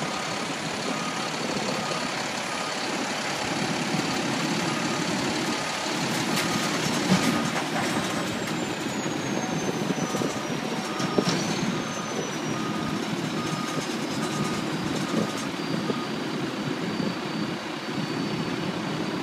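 Diesel engines of a DSNY street sweeper and garbage truck running steadily while the sweeper tips its hopper into the truck, with a reversing alarm beeping in a steady repeating pattern that stops a few seconds before the end. A faint high whine falls in pitch midway, and there are a couple of sharp knocks.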